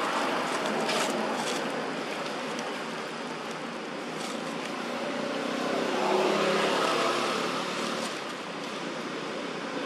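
Steady outdoor background noise with a motor vehicle passing at a distance; the engine sound swells and fades about six to seven seconds in.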